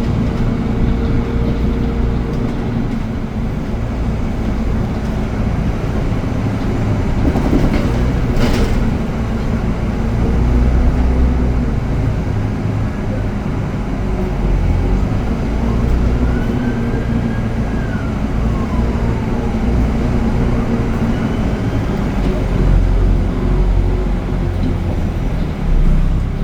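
Steady rumble of a heavy vehicle in motion, with a low engine hum and a faint squeal gliding up and down about two-thirds of the way through.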